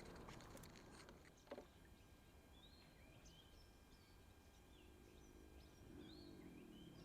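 Near silence outdoors, with faint bird chirps repeating from a couple of seconds in and a single small click about a second and a half in.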